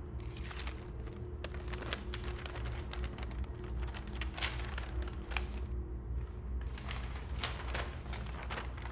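Light clicks, taps and rustles as a wooden-framed mirror is handled and set against a wall, over a low steady hum.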